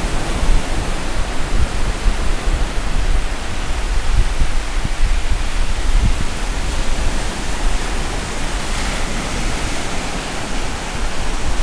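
Ocean surf breaking and washing up over a sandy beach: a steady rushing noise with a deep rumble underneath.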